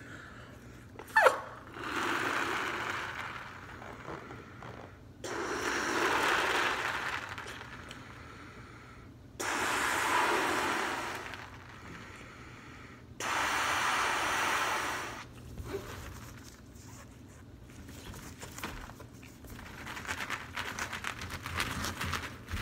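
A clear latex balloon with confetti inside being blown up by mouth: four long breaths into it, each about two seconds, with pauses between. There is a short squeak about a second in. In the last few seconds, latex-gloved hands handle the balloon with quick crackly rustling.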